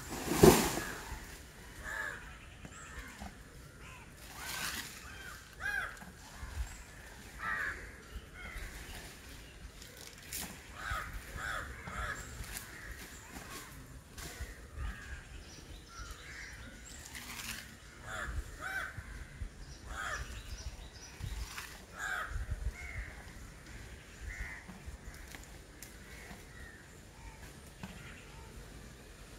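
Crows cawing repeatedly, short calls coming every second or so, with a loud sharp knock about half a second in.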